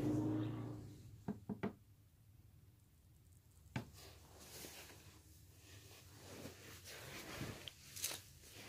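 The 1955 Kenmore box fan's steady motor hum dies away about a second in. After that comes near quiet with a few sharp clicks and light knocks, including a quick run of three and one more a couple of seconds later.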